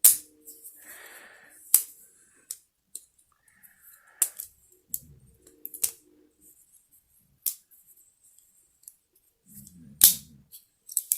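Sharp metal clicks and snips, a second or more apart, from a Leatherman Free P4 multi-tool being worked: its scissors opening and closing and its tools snapping into their locks. The loudest clicks come at the start and about ten seconds in.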